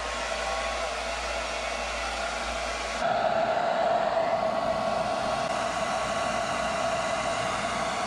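Hot Tools Ionic hair dryer running steadily, blowing warm air to thaw a frozen refrigerator ice maker and its water supply line. It is louder from about three seconds in.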